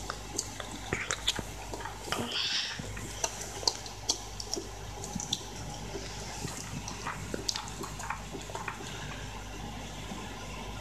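Shiba Inu eating dog food from a food bowl: irregular crunches and clicks of chewing and of the muzzle knocking in the bowl, with a short burst of mouth noise a couple of seconds in.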